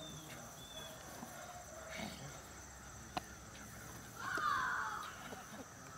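German Shepherd puppy growling briefly about four seconds in as it bites and tugs on a toy, with a couple of sharp clicks earlier and insects chirping steadily behind.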